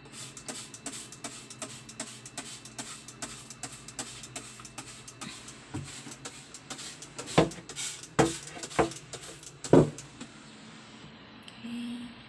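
Trigger spray bottle squirted again and again, a short hiss about three or four times a second, then several louder knocks against the cabinet.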